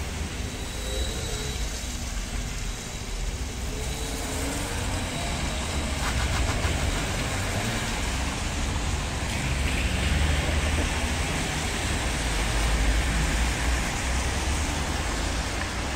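Street traffic: cars passing on wet asphalt, a steady tyre hiss over a low engine rumble. The hiss swells as a vehicle goes by about ten seconds in.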